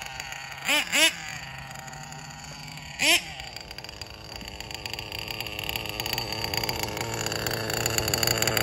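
Small nitro engine (a Nova 28.8) of an RC truggy, blipped three times in quick rising revs early on, then run steadily, getting louder toward the end as the truggy comes closer.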